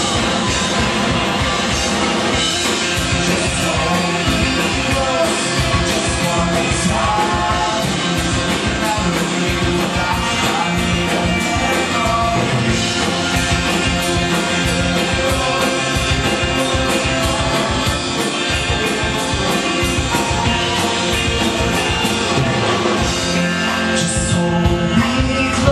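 Live rock band playing a song with a steady drum beat and singing.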